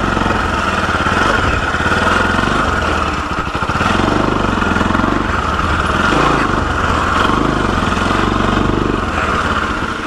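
Motorcycle engine running steadily at low revs while the bike is ridden slowly over a dirt track.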